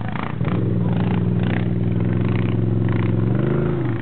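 ATV engine running hard at steady revs under load on a steep muddy climb, its revs rising near the end.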